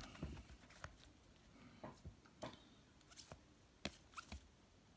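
Faint scattered clicks and light rustles of rigid plastic toploader card holders tapping and sliding against each other as a stack of cards is flipped through, otherwise near silence.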